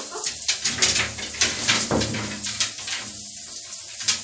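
A soaked blue-and-gold macaw shaking out its feathers and flapping its wet wings, a quick series of short splashy flutters and spatters over water from a running shower.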